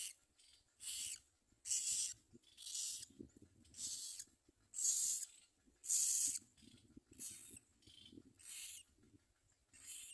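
Common myna nestlings giving harsh, raspy hissing begging calls, about one a second and each under half a second, loudest around the middle.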